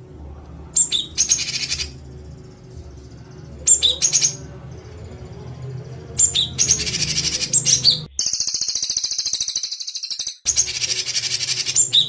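A songbird's harsh, rapid-fire 'tembakan' call bursts, repeated five times with short pauses, as used in a bird-song training recording. The fourth burst is a longer buzzing rattle of about two seconds. A steady low hum runs underneath.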